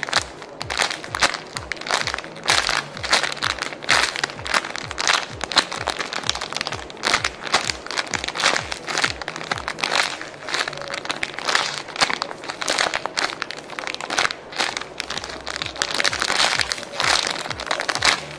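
Clear plastic packaging crinkling over and over as a red foam squishy toy is squeezed inside its bag, with background music playing.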